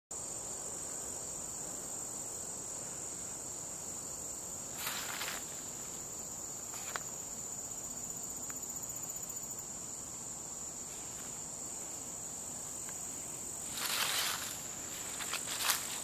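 A steady, high-pitched chorus of insects droning without a break. A brief rustle comes about five seconds in, and footsteps crunch on dry leaves near the end.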